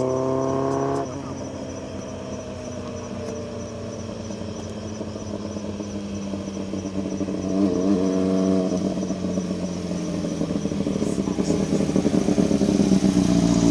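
Kawasaki ZRX400 inline-four running through a Moriwaki titanium header and a conical silencer with no baffle. It is held at raised revs for about a second, drops back to a lower steady run, gives a short blip of the throttle about eight seconds in, and grows louder and rougher near the end.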